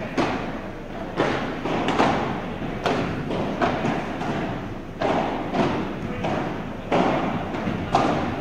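Padel rally: the ball struck back and forth by padel rackets and bouncing on the court, about ten sharp knocks spaced roughly a second apart, each echoing briefly in the large hall.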